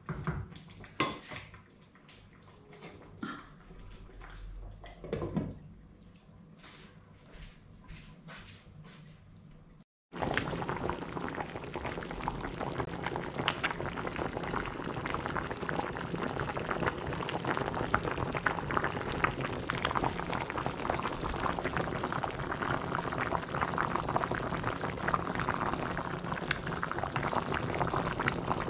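Beef-on-the-bone stew with cabbage bubbling in the pot, a dense steady crackle of boiling broth that starts abruptly about ten seconds in. Before that there are a few light knocks as a glass lid is set on the pot.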